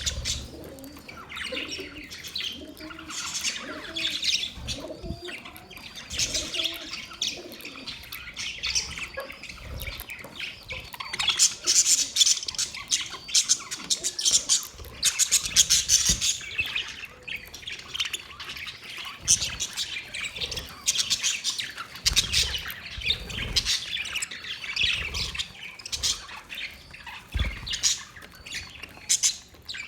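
Parrots chirping and squawking in rapid, overlapping calls, with a few dull low thumps.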